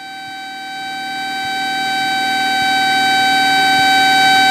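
Cessna 172 stall warning horn sounding one steady high-pitched tone that grows louder, over the low drone of the engine. It signals that the wing is close to the stall as the airplane slows at the top of the chandelle.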